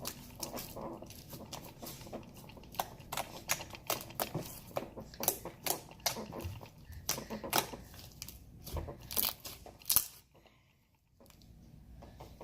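Hand-squished slime with fake snow mixed in, giving a quick, uneven run of sharp sticky clicks and crackles that pause briefly near the end. The fake snow has made the slime a little hard.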